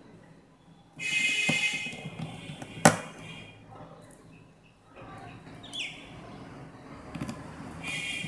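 Handling noise of a phone being put back together, with one sharp click just before three seconds in. A loud high-pitched chirping sound runs for about a second and a half about a second in and comes back near the end.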